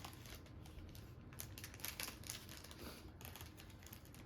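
Irregular light clicks and taps of small hard pieces being handled, as edible cookie decorations are picked up and placed.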